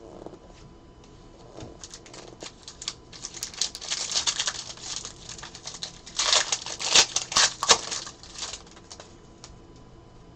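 Trading cards and foil pack wrappers being handled: a rapid run of crinkling and flicking, loudest about two-thirds of the way through, then dying away.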